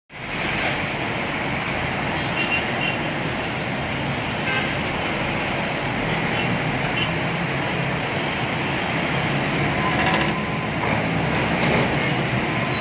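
Dense city road traffic: a steady rumble of bus and truck engines and tyres, with a few short horn toots.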